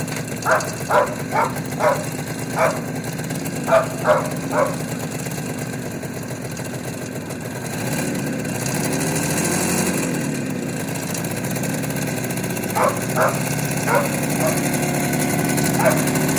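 IZh two-stroke motorcycle engine idling, revved up and back down once around the middle. A dog barks repeatedly over it, a quick run of about nine barks in the first few seconds and a few more near the end.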